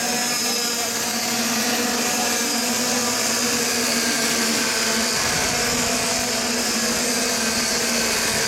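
A pack of cadet-class racing karts running at speed. Their small two-stroke engines make a steady, dense buzz of several engines at once.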